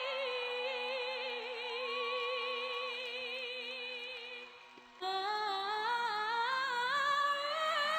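Music: a sung note held with wide vibrato that fades almost to nothing about four and a half seconds in. A new phrase starts just after five seconds, climbing in steps.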